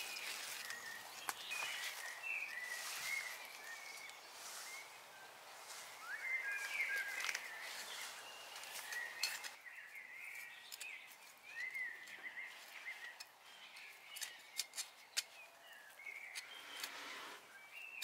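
Small birds chirping and twittering, with soft rustling of soil and onion stalks being handled. A few sharp clicks come in a cluster in the last third.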